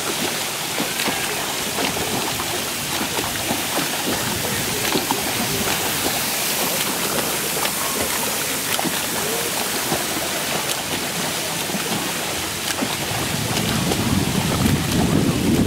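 Splashing of a swimmer doing front crawl in a pool: a steady wash of water noise broken by many small splashes from the arm strokes and kicks. A low rumble builds near the end.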